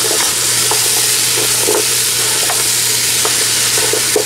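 Beef and chopped onion, celery and carrot sizzling in a CanCooker Jr pot while a silicone spatula stirs them, with a short scrape of the spatula every half second or so.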